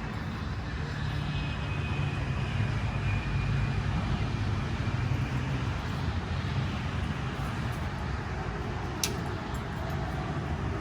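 A steady low engine rumble with a faint falling whine in the first half and a single sharp click about nine seconds in.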